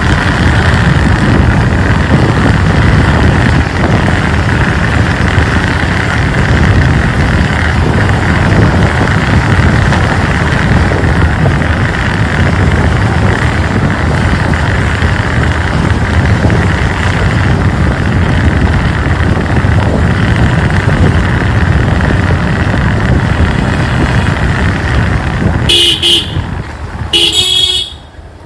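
Motorcycle running on the move, with a steady loud rush of engine and wind noise. A vehicle horn honks twice near the end, and then the noise drops away suddenly.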